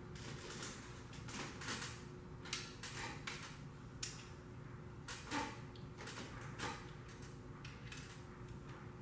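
Small clicks, taps and scrapes of a bow accessory being handled and fitted onto a compound bow's riser, irregular, with a louder knock about five seconds in. A faint steady hum sits underneath.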